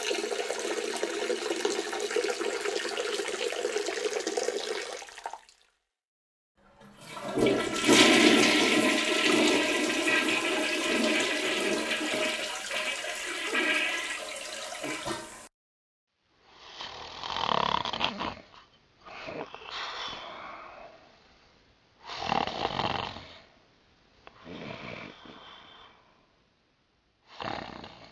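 Water from a tap runs for about five seconds and stops. A toilet then flushes with a loud whoosh for about nine seconds and cuts off sharply, followed by a few short separate sounds a couple of seconds apart.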